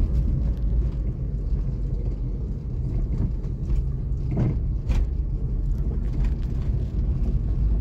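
Steady low rumble of a moving car's engine and road noise, heard from inside the cabin, with a faint click about five seconds in.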